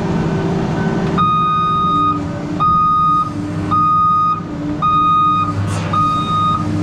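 Weiler S340 skidder's back-up alarm beeping, five steady beeps about once a second starting about a second in, over the machine's diesel engine running; the alarm signals the skidder is in reverse.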